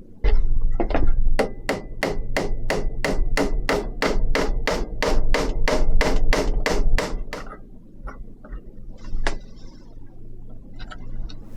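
Hammer striking wood in a steady run of about twenty hard blows, roughly three a second, for about seven seconds. A few lighter, separate knocks follow near the end.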